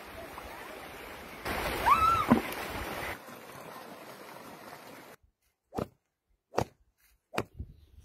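Shallow stream running over rocks with splashing water, and a short cry that rises and falls about two seconds in. The water sound cuts off suddenly after about five seconds, followed by three short squeaks about a second apart.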